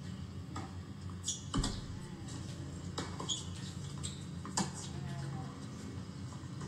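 Tennis ball struck by rackets in a rally, a few sharp hits about a second to a second and a half apart, the loudest about a second and a half in, mixed with short high squeaks of tennis shoes on the hard court.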